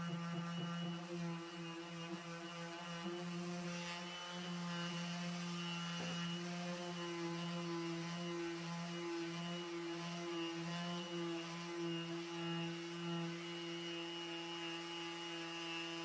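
Electric disc sander running steadily while sanding fiberglass gelcoat, a constant motor hum with small wavers in loudness as it is worked over the surface.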